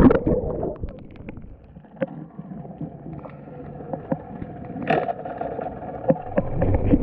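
Muffled underwater sound picked up by a camera sinking below the water's surface: the highs drop away within the first second, leaving a faint steady hum with scattered knocks, the loudest about five seconds in.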